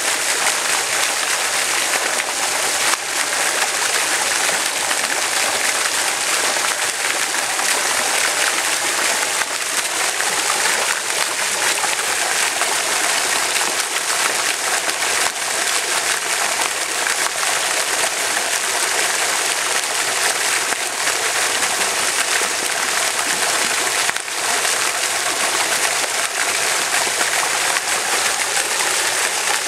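Steady rushing water, a stream or small cascade splashing in a constant, even hiss.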